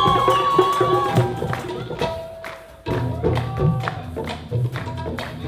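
Music from a fusion band mixing traditional South Asian and Western instruments. A held, gliding melody line over percussion fades out about two and a half seconds in, then a new passage starts with regular percussion strokes and a low bass line.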